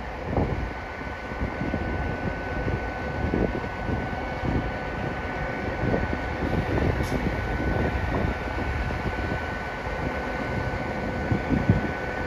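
Station platform ambience: a steady mechanical hum with a constant high whine from trains standing at the platform, over a gusty low rumble.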